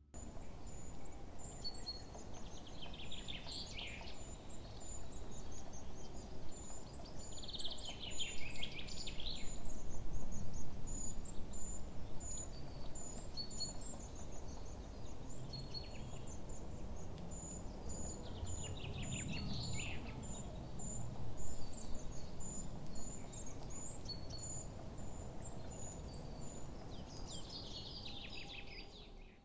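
Birds chirping: many short high chirps repeating throughout, with a longer falling song phrase every few seconds, over a low steady background noise.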